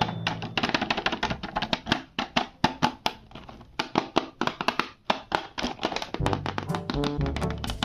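Background music with a fast run of tapping, clicking percussion over pitched notes; the bass drops out for most of it and comes back in near the end.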